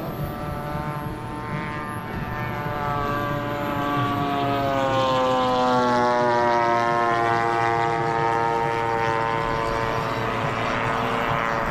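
Radio-controlled model warbird airplane engines and propellers running in flight, their pitch sliding as the planes pass; the sound grows louder about four seconds in.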